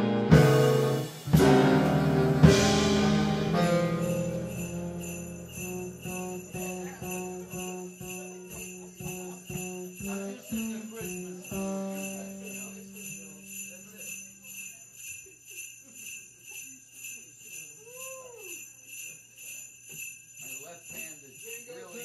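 A band ends a Christmas medley with loud chords, the last one held and fading out over about ten seconds. Sleigh bells keep shaking in a steady, even rhythm through the end and beyond.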